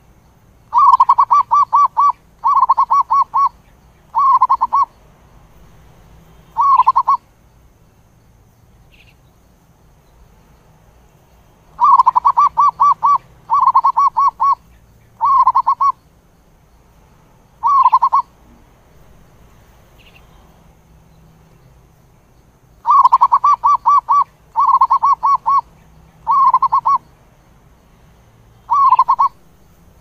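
Zebra dove cooing: three bouts about ten seconds apart, each made of four bursts of rapid staccato coos, the first burst the longest.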